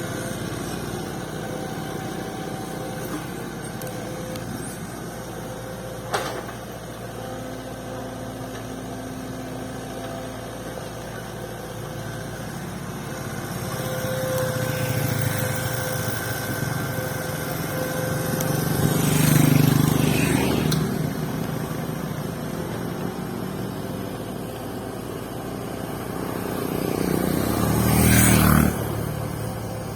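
Excavator engine running steadily. It swells louder twice as it comes under load, about two-thirds of the way through and again near the end, where it drops off suddenly. There is a single sharp click early in the run.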